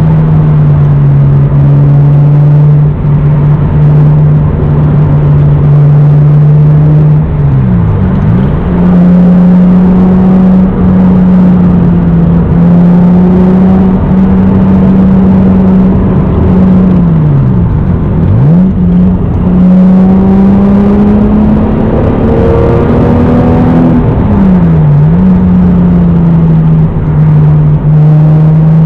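Naturally aspirated 3.0-litre inline-six (2JZ-GE) of a 1993 Toyota Supra with an aftermarket exhaust and K&N cold air intake, heard from on board while cruising at steady revs. The engine note dips sharply and comes back three times, about 8, 18 and 25 seconds in, with the revs settling slightly higher after the first dip.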